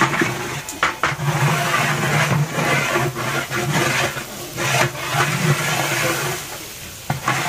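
A long flat metal spatula stirs and scrapes rice and mung dal frying in oil in a large aluminium pot, making repeated scrapes and knocks against the metal. A low hum comes and goes underneath.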